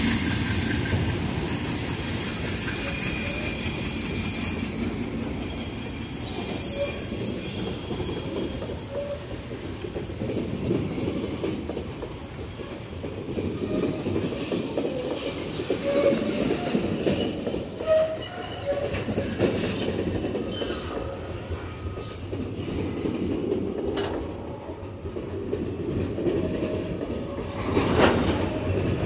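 Long string of empty freight flatcars rolling past, with a steady rumble of wheels on rail, intermittent wheel squeal and occasional clicks over the rail joints. The diesel of the GE C30-7 locomotive pulling them is heard fading in the first second.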